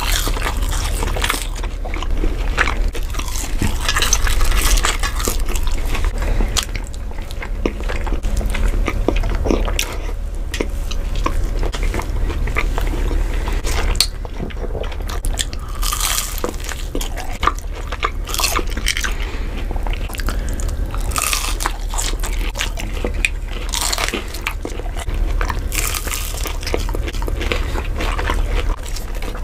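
Two people biting into and chewing fried chicken sandwiches and chicken nuggets close to the microphone, with frequent short crunches, over a steady low hum.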